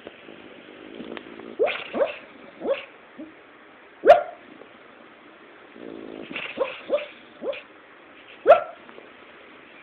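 Dog barking in her sleep while dreaming: two bouts of short, rising woofs and yips, the loudest single bark about four seconds in and another near the end, with her head under a pile of fabric.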